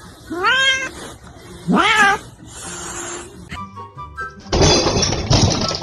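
A cat meowing twice, two drawn-out calls that bend in pitch, about a second and a half apart. About four and a half seconds in, louder music and other noise cut in.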